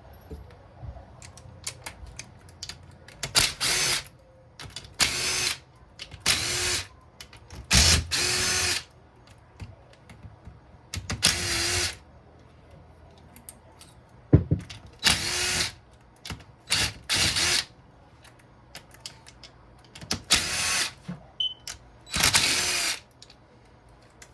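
Cordless power drill-driver spinning bolts out of a Honda CRF150R engine's clutch-side cover in about ten short runs, each half a second to a second long and spinning up quickly, with small metal clicks between them.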